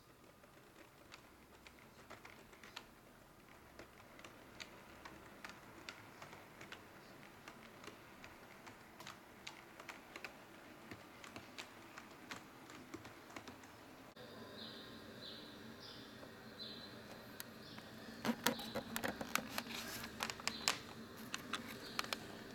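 Small, irregular clicks from a Bemo HOm-scale model train's wheels running over rail joints and points, with the locomotive's sound decoder switched off. A faint high squeak repeats about twice a second, and near the end the clicking turns into a louder, denser clatter.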